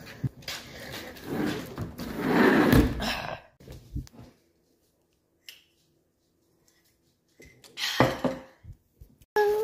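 A sliding glass patio door rolling along its track and shutting with a thunk.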